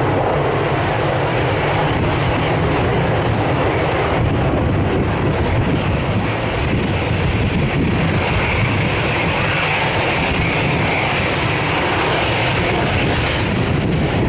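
Airliner engines as an airplane passes close by: a loud, steady rush of engine noise, with a higher whine coming in about eight seconds in and fading near the end.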